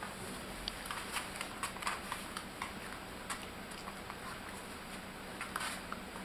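Scattered light clicks and scuffles of 26-day-old puppies moving about, busiest in the first couple of seconds and again near the end, over a faint steady hum.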